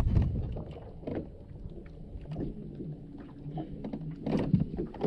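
Irregular knocks and bumps from someone moving about on a bass boat's front deck, with water lapping against the hull. The loudest bumps come at the start and again about four seconds in.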